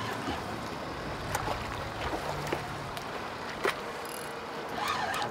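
Steady wash of sea water and wind around a small fishing boat on open water, with a few faint clicks.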